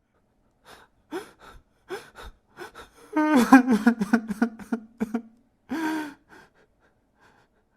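A man crying: a run of short sobbing gasps, then a long drawn-out whimper about three seconds in and a shorter one near six seconds, after which it stops.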